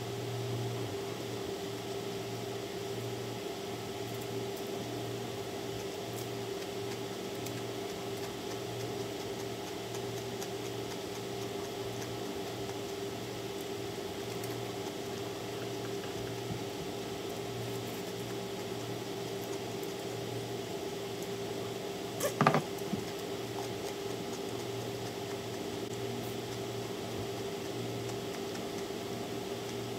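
Steady low hum with a faint hiss, like a fan or appliance running, under faint slurping and chewing of stir-fried rice noodles. A single sharp knock about three-quarters of the way through.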